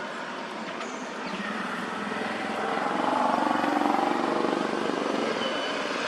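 A vehicle's engine, passing by, growing louder for a couple of seconds and easing off again.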